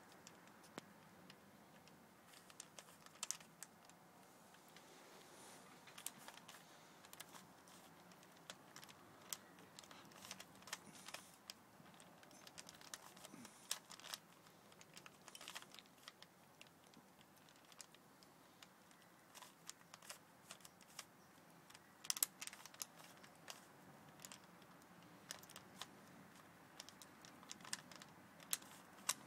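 A 3x3 Rubik's cube being solved by hand, its plastic layers clicking and clacking as they are turned in quick, irregular runs.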